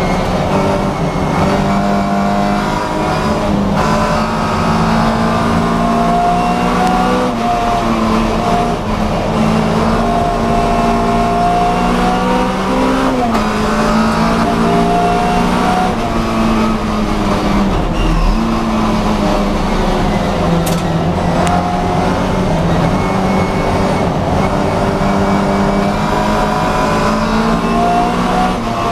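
Classic Mini's BMC A-series four-cylinder engine running hard under race load. Its pitch climbs and drops several times as the car accelerates and slows through the corners.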